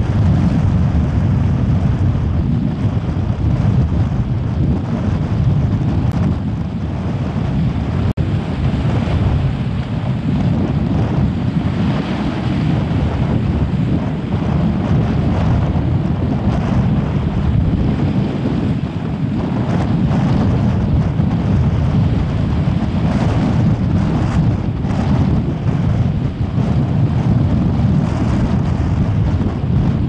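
Strong gusty wind buffeting the microphone, a loud steady low rumble that rises and falls with the gusts.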